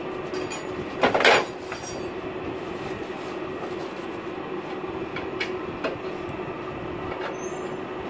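Steady mechanical hum with a few metallic clicks, and a loud clatter of metal parts about a second in, as a window air conditioner's sheet-metal panels and fittings are handled during disassembly.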